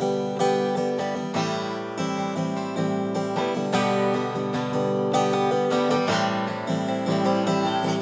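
Acoustic guitar strummed in a steady rhythm, playing the introduction to a song before any singing comes in.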